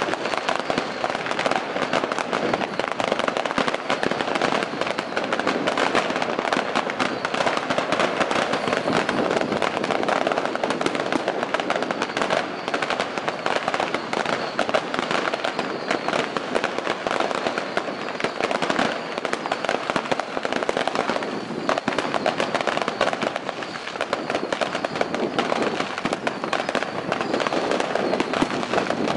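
Long strings of firecrackers going off without a break: a dense, continuous crackle of countless small bangs.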